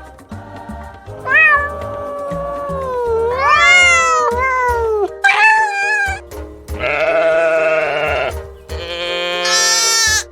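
Domestic cat meowing about five times in a row, in long, drawn-out calls that slide up and down in pitch, over background music.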